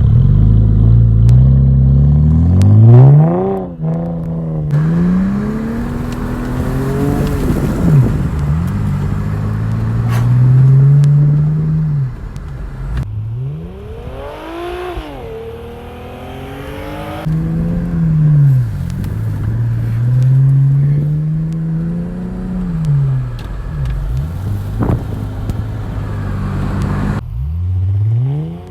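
An engine revving up and down again and again, its pitch rising and falling every second or two, in several clips cut abruptly together.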